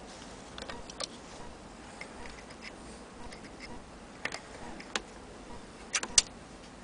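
Metal parts of an antique Vesta hand-crank sewing machine being handled, giving scattered sharp clicks and taps. Near the end come two clicks close together, the second the loudest.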